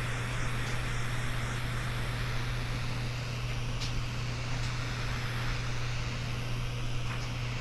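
Handheld butane torch burning with a steady hissing flame while it heats faded plastic, over a steady low hum.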